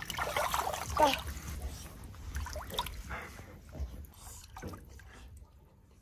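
Shallow water in an inflatable paddling pool splashing and trickling as a toddler moves about in it, with a brief falling squeak about a second in.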